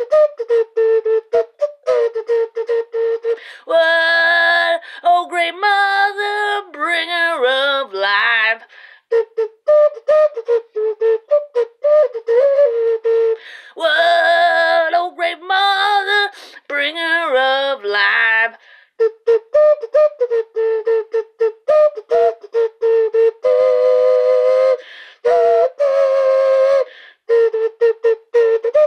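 Breast-shaped whistle blown in many short, steady notes on one pitch, broken by two stretches of wavering, sliding tones and some longer held notes.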